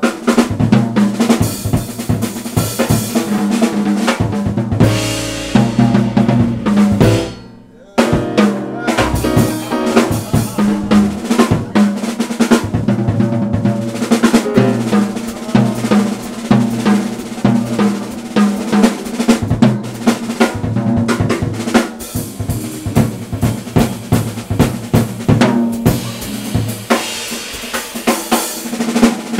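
Jazz drum kit solo: busy, fast snare, bass drum and cymbal strikes, with a short break a little before eight seconds in.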